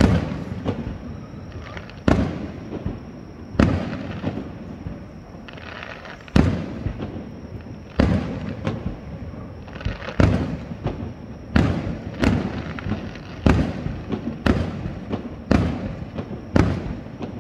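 Aerial firework shells bursting in a steady sequence: about a dozen sharp booms, one every second or two and coming faster in the second half, each followed by an echoing rumble and lighter crackling.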